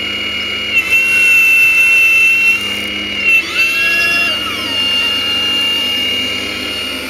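Radio-controlled Hitachi Zaxis 870 LCH model excavator's electric drive whining steadily as the upper body swings and the bucket lifts. The whine gets louder about a second in, and its pitch rises and falls about halfway through as the machine works.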